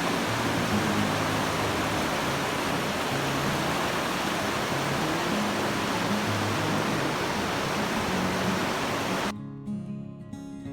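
Steady rushing water with acoustic guitar music playing underneath. About nine seconds in, the water sound cuts off abruptly and the guitar music carries on alone.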